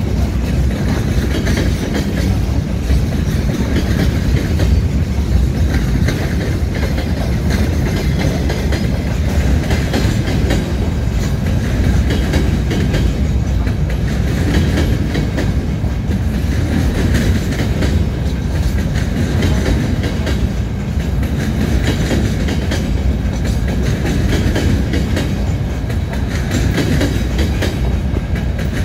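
Wagons of a freight train rolling past: a steady rumble of steel wheels on rail, with repeated clicks as the wheels cross rail joints. The train is a mix of tank cars, boxcars and empty timber flatcars.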